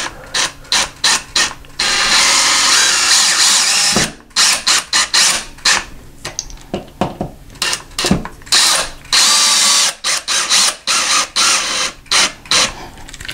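Cordless drill/driver driving a screw through a metal bracket into a wood stud behind drywall. It runs in many short trigger bursts, with one longer run of about two seconds, as the screw is snugged without over-tightening.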